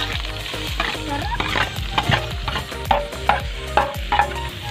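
Pounded bagongon snails scraped with a metal spoon from a metal bowl into hot oil in a wok, sizzling as they land, with repeated sharp clinks and scrapes of spoon against bowl and shells.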